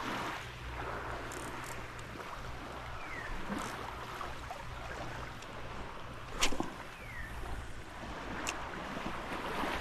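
Small waves lapping at the shoreline with light wind on the microphone, a steady soft wash. A few sharp clicks sound over it, the loudest about two-thirds of the way through, along with three short falling chirps.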